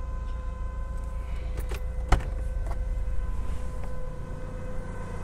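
Forklift engine running steadily with a steady whine over it while it holds a Jeep hard top up on straps. A few metal clanks ring out, the sharpest about two seconds in.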